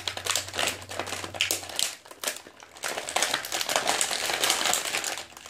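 Plastic and cardboard action-figure packaging being handled and opened: a dense run of crinkling and sharp crackling clicks, with a short lull about two seconds in.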